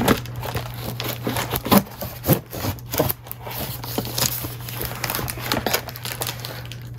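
A knife blade slitting the clear packing tape along the edge of a cardboard mailer box, with crinkling tape and cardboard and short irregular scrapes and knocks as the box is handled, over a steady low hum.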